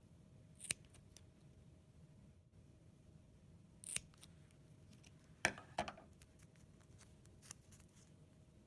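Scissors snipping a few times, short sharp cuts spaced over several seconds, as a slot is cut into the end of a half-inch ribbon.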